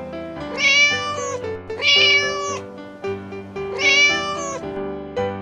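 Domestic cat meowing three times, each meow under a second long and rising then falling in pitch, over background music.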